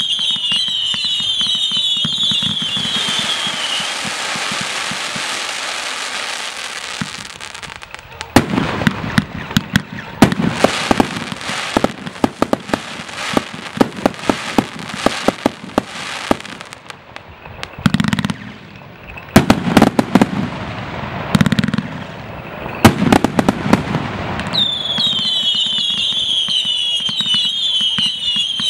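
A 245-shot firework cake firing: first a quick run of falling whistles, then a steady hiss of sparks, then a long barrage of sharp cracks and bangs with a few deeper thumps. The falling whistles return near the end.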